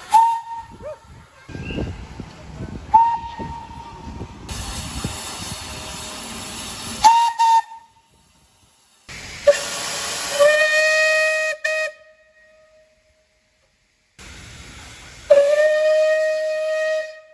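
Steam locomotive whistles. First come three short, high toots with steam hissing between them. Then, after abrupt breaks, there are two longer, deeper blasts of about two seconds each, one near the middle and one near the end.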